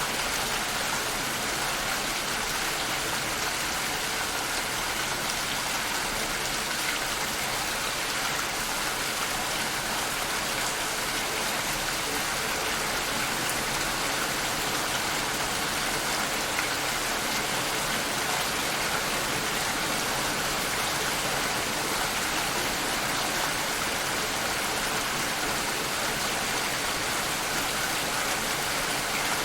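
Steady rainfall: an even, unbroken hiss of rain falling, with no thunder or pauses.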